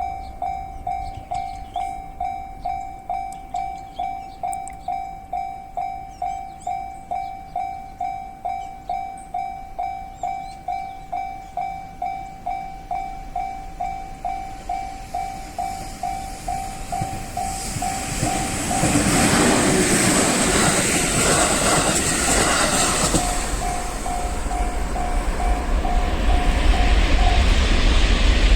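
Japanese level crossing's electronic warning bell dinging steadily, about one and a half strikes a second. From about 17 seconds in, a train passes through the crossing and its running noise swells over the bell, ending in a deep rumble. The bell stops near the end.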